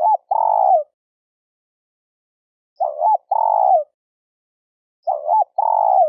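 Spotted dove cooing: a short hooked note followed by a longer drawn-out coo, the phrase repeated three times about every two and a half seconds.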